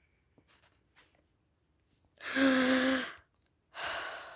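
A child's voice makes a held, steady vocal sound for about a second, then a long breathy exhale that fades out near the end: a spoken-aloud 'breathes out' sound effect.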